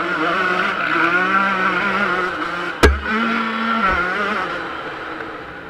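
Yamaha YZ125 two-stroke motocross engine running on the throttle, its note rising and falling. A sharp knock about three seconds in, and the engine eases off near the end.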